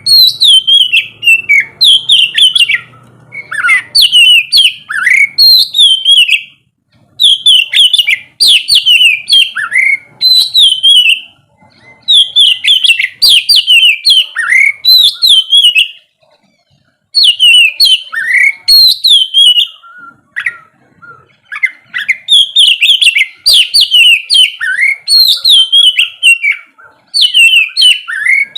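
Oriental magpie-robin (kacer) singing loudly: rapid, varied whistled phrases, delivered in runs of several seconds with short pauses between. This is the full song used to stir a caged bird into singing.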